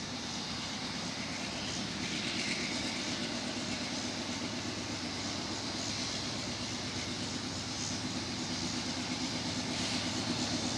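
Union Pacific diesel locomotives leading an empty coal train, their engines running with a steady low rumble that grows louder as they approach.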